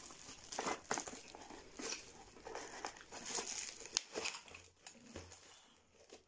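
Plastic bubble wrap crinkling and rustling in irregular crackles as it is handled and pulled off a packaged lantern.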